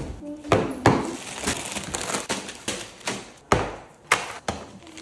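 Grocery packages (cardboard boxes, juice packs, plastic tubs) being set down one after another on a stone countertop: a quick, irregular run of knocks and taps, about two or three a second.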